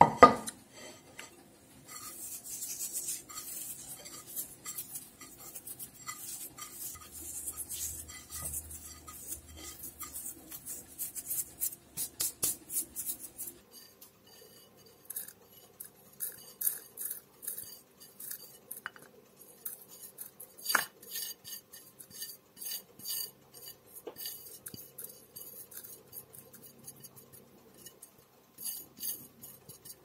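A sharp knock at the start, then crisp microwave-dried parsley crackling and rustling as it is rubbed into powder by hand on a plate. About halfway through the rubbing gives way to light taps and clinks of the plate against a funnel as the powder is poured into a glass jar.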